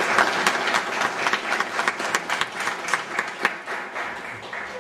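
Audience applauding, many people clapping at once, the clapping thinning out and dying away near the end.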